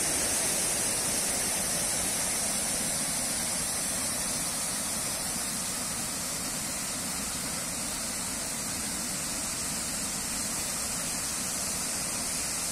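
Water rushing steadily over a wide stone ledge and falling in a thin curtain into a pool below.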